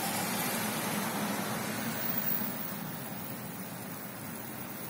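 Steady outdoor background hiss in wet, snowy weather, a little louder for the first two seconds or so.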